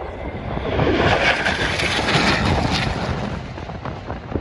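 An aircraft flying past the airshow crowd: its noise swells about half a second in, stays loud for around two seconds and then fades away.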